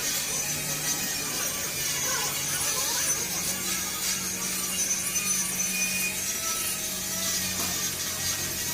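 Steady workshop noise: a low hum under a hiss, with a hand tool rubbing.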